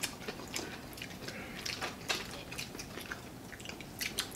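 Close-up eating sounds of people eating with their hands: chewing, lip smacks and scattered sharp little clicks at an irregular pace.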